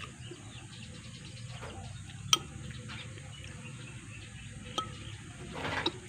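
A metal fork clicking against a glass bowl and plate while eating: a few sharp clinks, the loudest about two seconds in, and a brief scraping rustle near the end.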